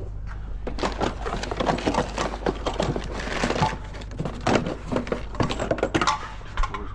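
A dense, irregular run of clattering and rattling knocks, as of hard objects being handled and shifted, over a steady low hum.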